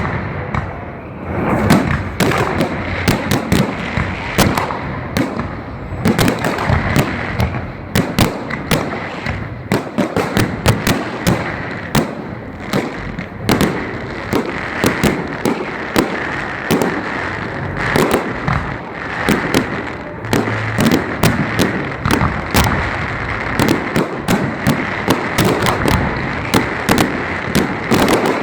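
Fireworks display: a dense, continuous barrage of bangs and crackles from bursting fireworks, many each second with no let-up.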